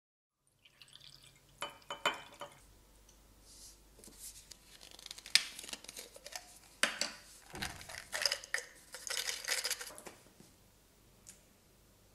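Clinks, clicks and light taps of small objects being handled, with a plastic cap being twisted on a small container, and one dull thud a little past the middle.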